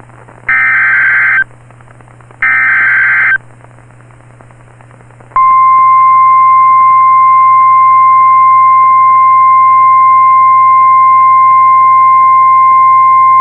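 NOAA Weather Radio alert signal. First come the last two of the three SAME digital header bursts, each a buzzy data burst of about a second, one second apart. After about two seconds of hiss, the steady 1050 Hz warning alarm tone starts about five seconds in; it is the signal that a warning message follows.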